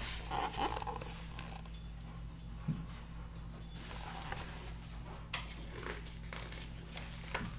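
Quiet handling noises: soft paper rustles and a few light clicks as a hardcover picture book is held up and a page turned, with faint dog sounds, all over a low steady hum.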